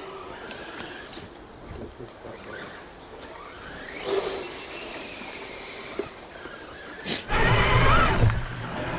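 The electric motor of a 1/10-scale RC crawler whining and squealing in short bursts against a drivetrain that has locked up and will not turn. One burst has a rising whine about four seconds in, and a louder, lower burst comes near the end.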